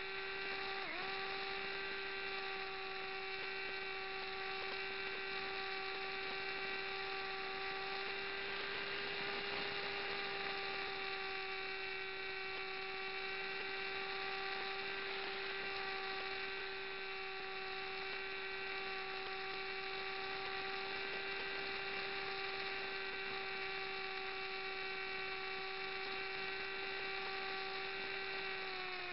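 Onboard sound of an RC flying wing's motor and propeller in flight: a steady whine with a brief dip in pitch about a second in and a small drop in pitch near the end.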